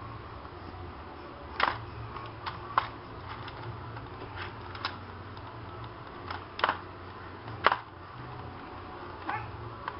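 Keys of a computer keyboard clacking irregularly as a baby's hands press and slap them, a few sharp clicks standing out from quieter ones, over a steady low hum.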